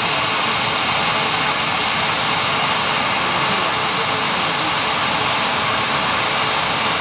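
Bombardier CS300 jet airliner taxiing, its Pratt & Whitney PW1500G geared turbofans running at low taxi power with a steady jet hiss and faint whine.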